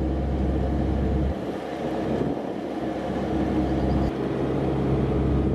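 Narrowboat's engine running steadily under way against the current, a continuous hum with a heavy low rumble that drops away about a second in and returns near the end.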